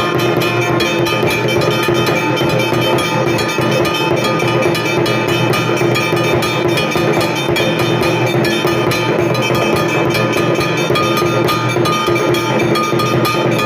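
Hindu temple bells rung rapidly and without pause, many strikes overlapping into a dense, steady metallic ringing.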